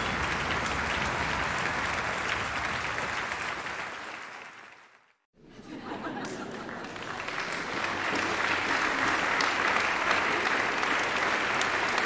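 A large audience applauding with foot stomping in a concert hall fades out about four to five seconds in. After a moment's silence, a crowd in a church starts applauding and builds to full, sustained applause.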